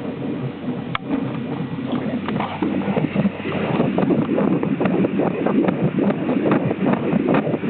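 Heartbeat sound: a fast, repeating beat over a steady rushing hiss.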